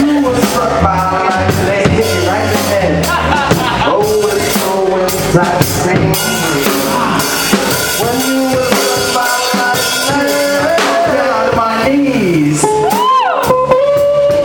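Live ensemble music at loud, steady volume: a drum kit keeping time under a pitched lead line that slides and bends in pitch, strongest near the end.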